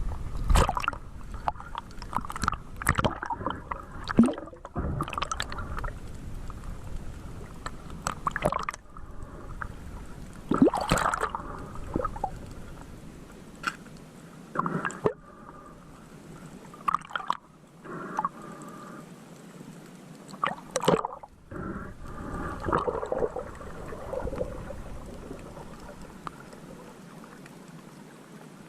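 Water gurgling and sloshing close to the microphone, with irregular splashes and knocks every second or two that thin out near the end.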